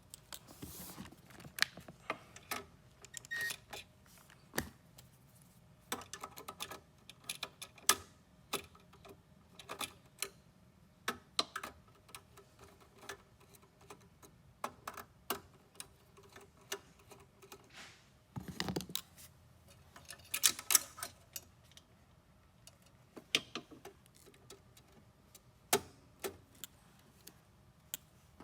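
Needle-nose pliers and wire ends clicking and tapping against a power supply's metal terminals and housing: irregular, sharp small clicks with short pauses between them.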